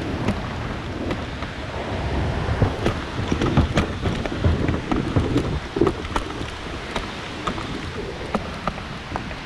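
Water splashing and sloshing with irregular sharp knocks, busiest through the middle, over wind rumbling on the microphone.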